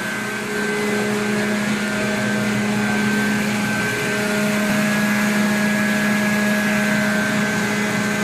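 Large condenser water pumps and their electric motors running steadily: a constant machine hum with a fixed low drone over an even rushing noise.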